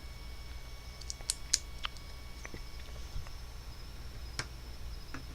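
LEGO plastic pieces clicking and rattling as they are handled and pressed together: a handful of separate sharp clicks, the loudest about one and a half seconds in, over a low steady hum.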